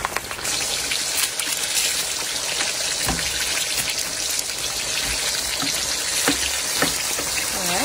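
Hot oil in a wok sizzling steadily as breaded mini sweet peppers deep-fry, an even hiss with a few faint ticks.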